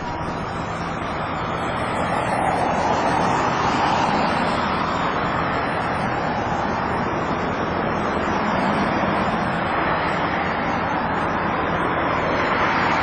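Steady rushing vehicle noise, swelling a little about two seconds in and again near the end.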